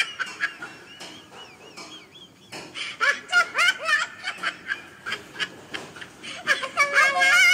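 A young girl giggling in high-pitched bursts, once about three seconds in and again near the end.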